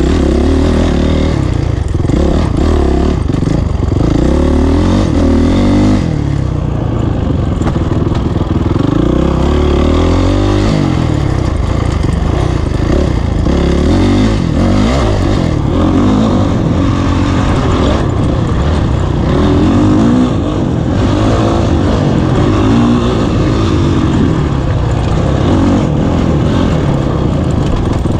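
Honda CRF450 dirt bike's single-cylinder four-stroke engine under hard riding, the revs rising and dropping again and again as the rider works the throttle and gears.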